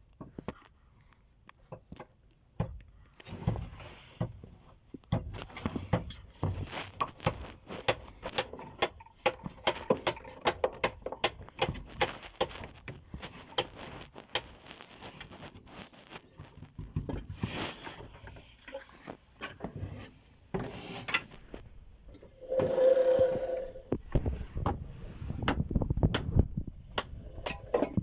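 Irregular clicks, knocks and scraping of hard parts being handled and moved, with a short louder hum about three-quarters of the way through.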